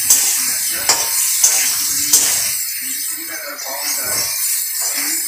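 Potato chunks frying in hot oil in a metal kadai, sizzling steadily while a metal spatula stirs and scrapes them, with a few sharp clinks of the spatula against the pan.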